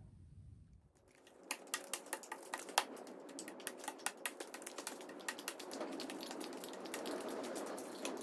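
Footsteps on cardboard sheets laid over the floor: many irregular sharp crackles and clicks over a soft rustle, starting about a second in.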